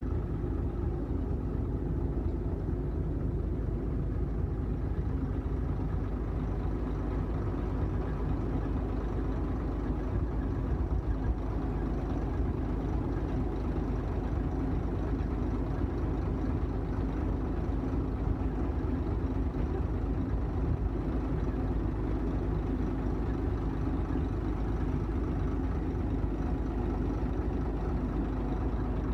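Combine harvester's diesel engine running steadily at a constant speed.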